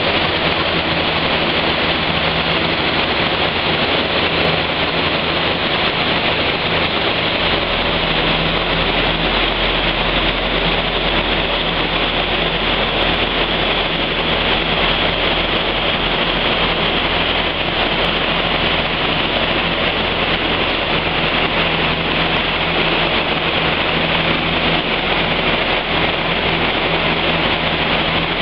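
Car on a chassis dynamometer running at a constant speed: a loud, steady rush of noise over a low engine hum, with no rise or fall in revs.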